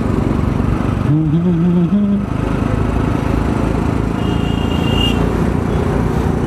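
Scooter riding through city traffic: steady engine and road noise with wind rushing over the rider's microphone. About a second in, a brief low wavering hum rises over it for about a second.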